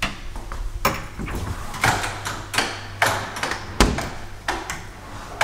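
Fridge-freezer doors and plastic freezer drawers being opened and handled: a string of sharp knocks, clicks and rattles, about one every half second.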